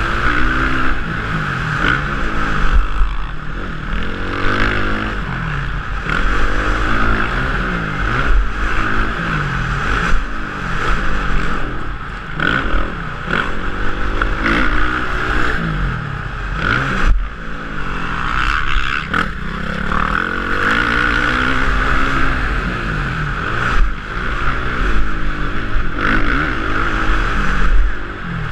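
Motocross bike engine on full race laps, its pitch climbing hard and dropping back again and again as the throttle is opened through the gears and chopped for jumps and corners. Wind rushes over the helmet-mounted camera throughout.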